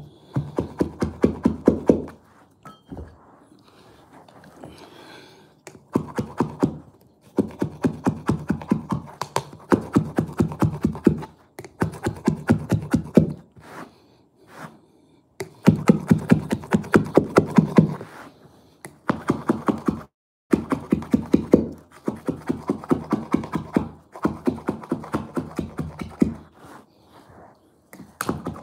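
Carpet knife back-cutting the carpet edge along the skirting board, the blade crackling through the carpet backing in quick runs of clicks, about ten a second, each run lasting one to three seconds with short pauses between.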